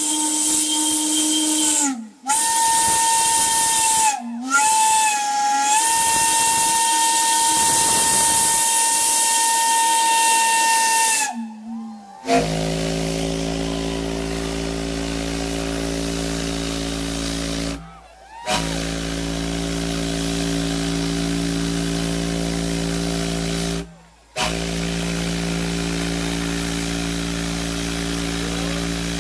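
Steam whistles blown in turn with a strong hiss of steam. First a higher single-note whistle sounds in three blasts, its pitch sagging briefly as the valve is worked. Then, from about 12 s, a deep multi-note chime whistle sounds a chord in three long blasts of roughly five to six seconds each.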